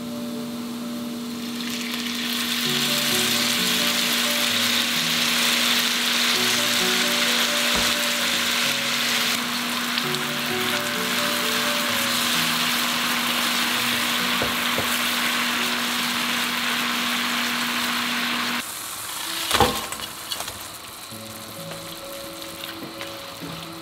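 Minced garlic frying in oil with sugar and fish sauce in a frying pan: a loud, steady sizzle that swells about two seconds in. Near the end the sizzle drops off abruptly, a sharp knock follows, and a quieter sizzle goes on.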